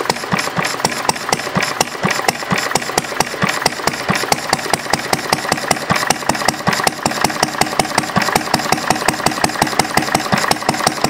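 Single-cylinder Briggs & Stratton engine with a see-through glass cylinder head, running steadily with evenly spaced, sharp firing pulses.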